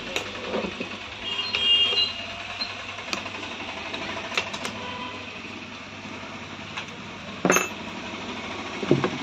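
Scattered clicks and knocks from hands handling a petrol chainsaw's plastic housing while the engine is off, with a sharper click about seven and a half seconds in.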